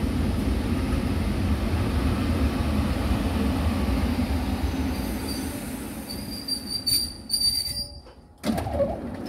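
A passenger train passing on the line, its rumble slowly fading, with a high wheel squeal from about five seconds in. The sound drops off abruptly near the end.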